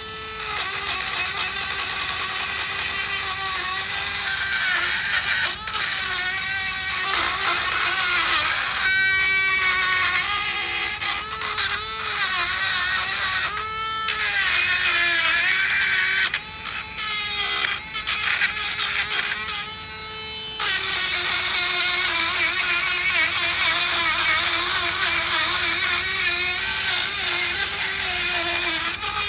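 Dremel rotary tool spinning up and running at high speed as it scours rust buildup off a brake caliper bracket where the pad hardware sits. Its steady whine sags and recovers in pitch under a harsh scouring hiss, and the sound drops out briefly a few times as the tool is lifted off.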